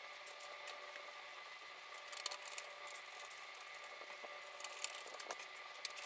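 Faint small clicks and scrapes of a screw being driven by hand to fasten a case fan to the front of a PC case, in scattered groups rather than a steady run.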